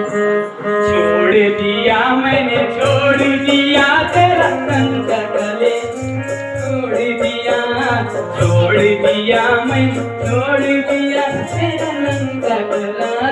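Music with a steady beat: held melody notes over a repeating low pulse, with a fast, even shaking rhythm joining about three seconds in.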